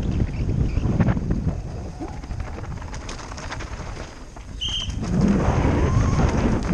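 Downhill mountain bike at race speed, heard from a helmet-mounted camera: wind rushing over the microphone and the tyres and bike rattling over dirt and rocks, with many short knocks. It eases off in the middle, with a short high squeal about two-thirds in, then grows loud again.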